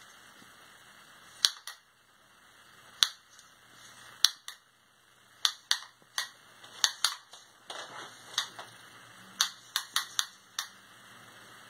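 Sharp plastic clicks from the reel of a retractable 2-in-1 Lightning and Micro USB charging cable as the cable is pulled out: a few scattered clicks, then a quicker run of about a dozen in the second half.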